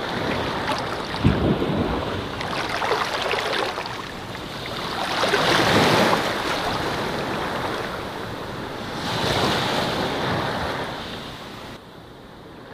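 Sea surf washing up onto a sandy beach, swelling and fading roughly every four seconds, the loudest wash about six seconds in. There is some wind rumble on the microphone, and the sound drops quieter near the end.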